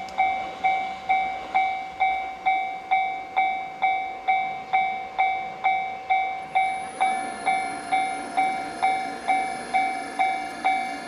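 Japanese level-crossing warning bell clanging steadily at nearly two strikes a second. About seven seconds in, steady high tones from the approaching freight train join the bell.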